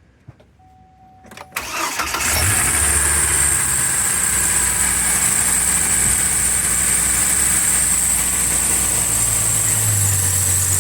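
Pickup truck engine started about one and a half seconds in, catching quickly and settling into an idle, with a steady high-pitched squeal from the belt-driven accessories. The squeal comes from all over the belt drive, and the owners suspect a worn alternator bearing.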